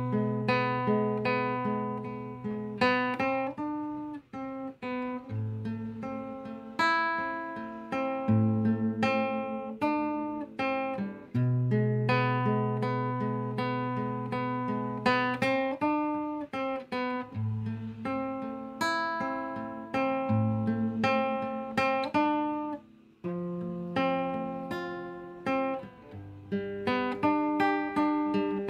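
Background music: acoustic guitar picking and strumming chords over a low bass line, without vocals.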